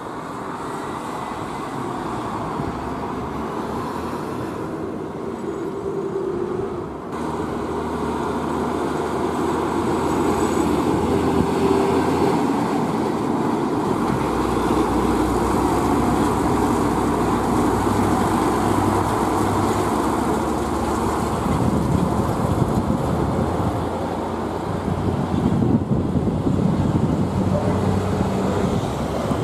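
Nissan Diesel Big Thumb semi-trailer truck's diesel engine pulling away and running under load, with tyre and road noise. The sound changes suddenly about seven seconds in and grows louder after it.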